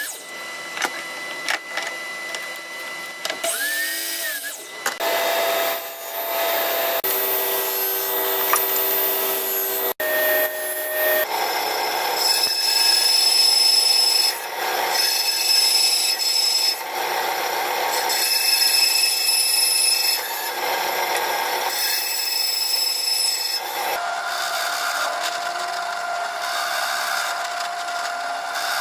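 Power tool cutting plywood for a tenon and dado joint, with a steady high whine over the cutting noise. In the middle stretch it makes about five regular passes roughly two seconds apart, and the sound changes abruptly twice.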